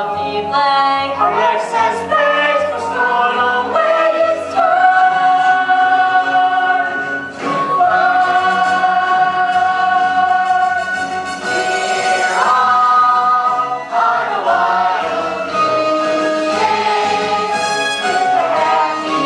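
A musical theatre song: several voices singing together over instrumental accompaniment with a steady, pulsing bass. The voices hold long notes through the middle.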